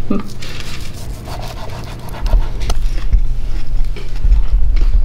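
Knife sawing through cooked venison backstrap on a plastic cutting board, with rasping strokes and scattered light knocks.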